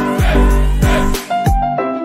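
Background music with a deep bass beat under held chords; the bass drops out near the end.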